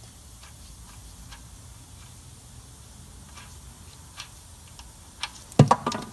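A 17 mm spanner undoing the engine sump plug of a 2008 Suzuki Swift: a few faint, irregular metal clicks, then a short burst of loud metallic knocks near the end.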